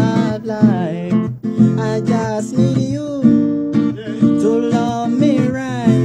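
Acoustic guitar strummed steadily while a man sings a melody over it into a close microphone.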